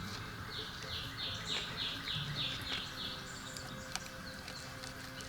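A bird singing a run of about eight short, evenly spaced down-slurred notes over roughly two and a half seconds.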